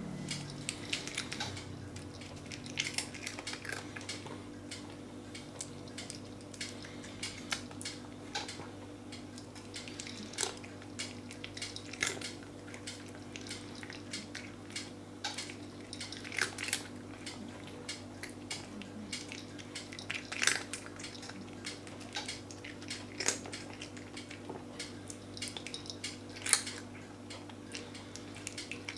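Cat eating crunchy dry treats: irregular sharp crunches, and clicks of the pieces against the dish, over a steady low hum.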